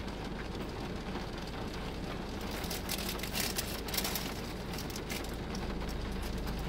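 Steady hum inside a car with rain pattering lightly on the body, and a few brief crackles about three to four seconds in.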